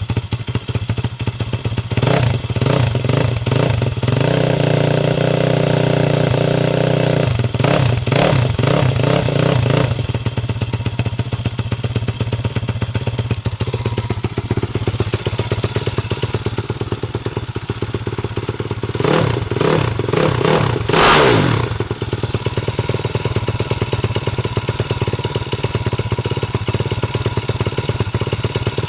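Freshly assembled motorcycle engine running at idle, revved up and held for a few seconds twice early on, then settling back, with one more quick rev that rises and falls away about two-thirds of the way through.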